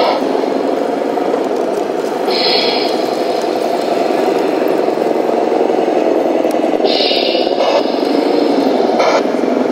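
RC heavy-haulage semi-truck model driving through sand, with a steady engine-like running sound that wavers in pitch, broken by about three short hisses.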